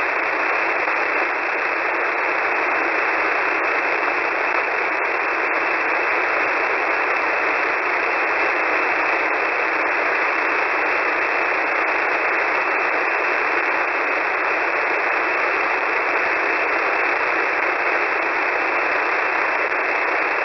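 Steady shortwave radio static, the even hiss of a single-sideband receiver's audio passband, on the US military HF-GCS channel with no voice transmission on it.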